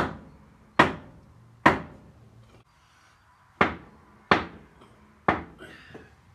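Sharp hammer knocks on a Caterpillar Sixty engine's water manifold, tapping it sideways to shift it into alignment with the cylinders. Six blows at uneven intervals, a pause of about two seconds after the third, each ringing briefly.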